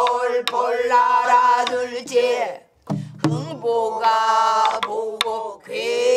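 Pansori singing by a group in unison, long held notes bending and wavering, with a short break for breath near the middle. Sparse knocks of buk barrel drums struck with sticks mark the rhythm.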